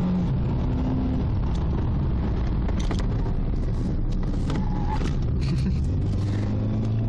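Car driving at speed: the engine running over steady road and tyre noise, with a few short knocks partway through.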